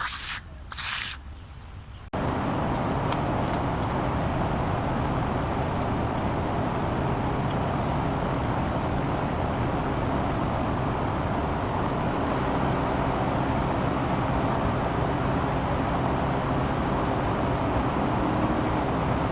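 Two short hisses, then about two seconds in a steady mechanical running noise with a low hum starts abruptly and keeps going evenly, like an engine or motor running at a constant speed.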